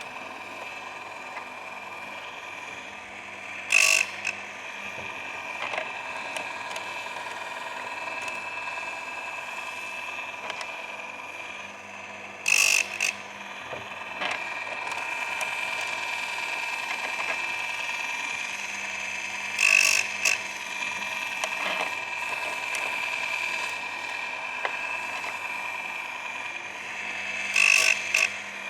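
Baumr-AG electric chainsaw sharpener running with a steady whine. Its grinding wheel is brought onto a chain tooth four times, about every eight seconds, each a brief loud grind as it cuts the tooth.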